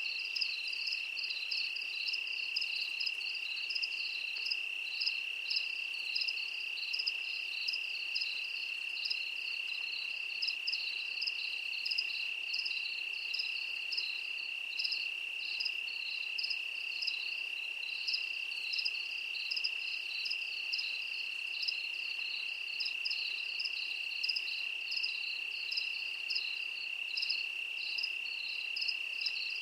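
Crickets chirping: a steady high trill with rapid, uneven chirps layered just above it, unbroken throughout.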